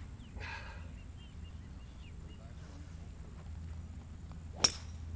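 Golf club head tapping a golf ball as a fresh ball is raked into place for the next shot, one sharp click near the end.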